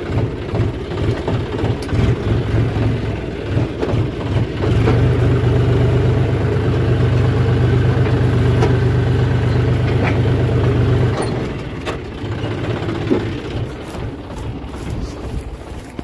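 John Deere tractor's diesel engine running. It grows louder and steadier about five seconds in, holds there, and eases back about eleven seconds in.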